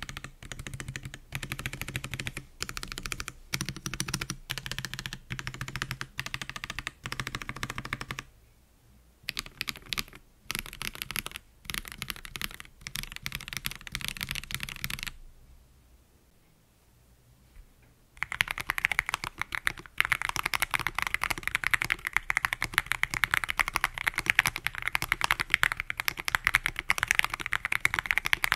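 Typing on an Akko ACR Pro Alice Plus Alice-layout mechanical keyboard with Akko CS Crystal linear switches, an aluminium plate and Cherry-profile PBT keycaps, first in stock form with two short pauses. After a gap of about three seconds, typing resumes faster and louder on the same board after modding: tape mod, lubed stabilizers and poron gaskets.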